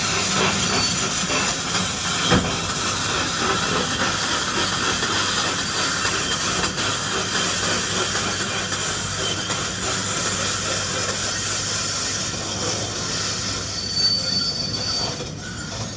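Link-Belt 490 excavator working: its diesel engine runs steadily under a loud, high-pitched hissing noise from the machine. There is a single sharp knock about two seconds in.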